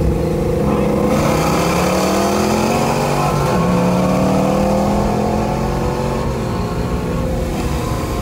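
Ford Shelby GT350's 5.2-litre flat-plane-crank V8 accelerating hard, heard from inside the cabin. The revs climb for a couple of seconds, drop back with an upshift about three and a half seconds in, then climb again and level off.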